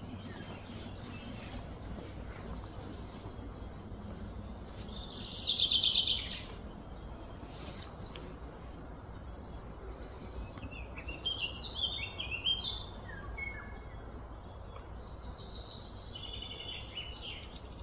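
Birds calling: a loud, fast trill sliding down in pitch about five seconds in, a run of descending chirps a few seconds later, and another trill starting at the very end. Faint high chirping and a low steady background hum run underneath.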